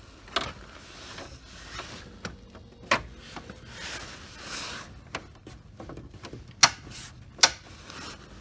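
Clicks, knocks and rustling of plastic interior trim panels being handled and fitted back into a car's dash, with two sharp snaps near the end.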